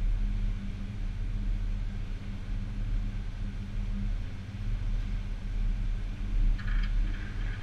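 Boat engine's steady low drone heard underwater, with a brief faint crackle near the end.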